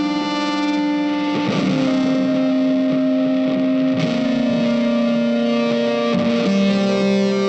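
Background music led by a distorted electric guitar, with sustained notes that change every second or two.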